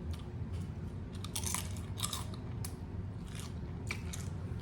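Close-up chewing of crunchy tortilla chips with cheese dip: irregular crisp crunches and bites.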